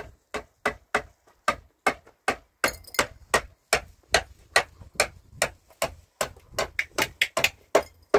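Quick, regular knocks, about three or four a second, speeding up a little near the end: a tool striking something over and over.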